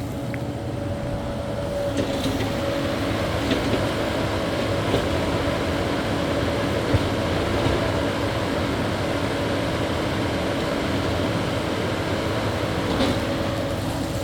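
Caterpillar 308E2 mini excavator running steadily under work, a constant diesel engine drone with a steady whine over it and a few faint knocks.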